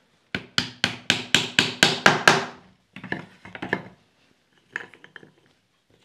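Wooden mallet tapping lattice bars into their half-lap joints during a dry fit of a wooden lattice window: a quick run of about nine sharp wooden knocks, about four a second, then a few softer knocks and light clicks as the bars seat.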